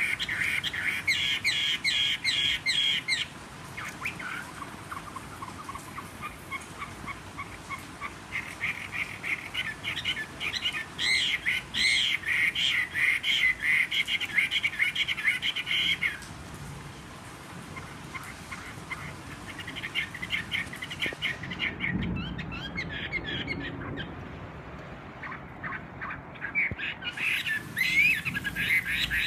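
Caged Chinese hwamei (Garrulax canorus) singing in long, loud phrases of rapid repeated notes with quieter pauses between them. The owner describes its voice as slightly hoarse.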